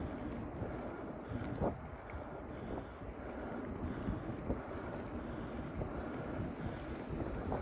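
Wind buffeting the microphone while riding a bicycle, a steady rumble with a few faint clicks from the bike.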